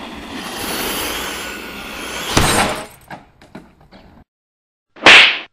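A rushing noise that ends in a sharp crash about two and a half seconds in, followed by scattered tinkling clicks, then a short, very loud burst near the end.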